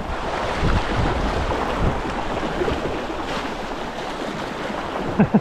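Shallow river riffle rushing and splashing steadily around a canoe as it is paddled through the fast water.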